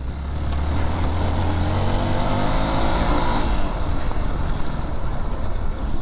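Single-cylinder engine of a Hero XPulse Rally dirt motorcycle running while under way on a rough gravel track. Its pitch rises and then falls near the middle.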